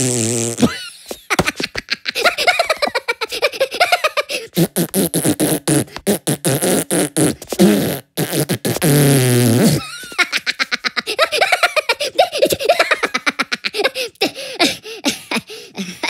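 Cartoon fart noises from the animated Minions: a long buzzing blast lasting about five seconds in the middle, with shorter ones around it. High-pitched Minion giggling and laughter runs between them.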